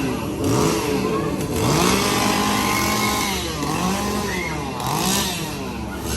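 Chainsaw engines revved again and again, the pitch rising and falling in sweeps about every second over a steady mechanical din.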